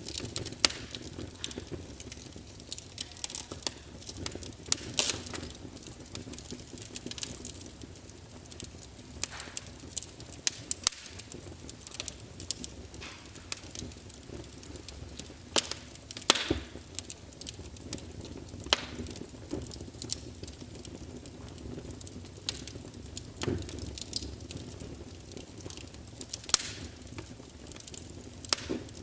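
Wood log fire burning: a steady low rumble of flame with irregular sharp crackles and pops, several louder snaps scattered through.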